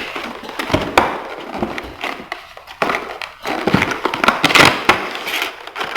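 Packaging being torn open and handled to get a fetal doppler out of its box: irregular crackling and rustling with many sharp clicks.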